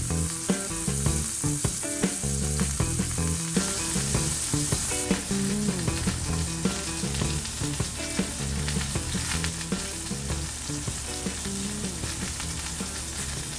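Venison backstrap searing in a hot cast-iron skillet: a steady sizzle thick with small crackles and pops.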